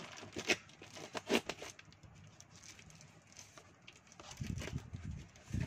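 A taped cardboard parcel being handled and opened: sharp crinkles and taps of packing tape and cardboard, loudest about half a second and just over a second in, then dull bumps of the box near the end.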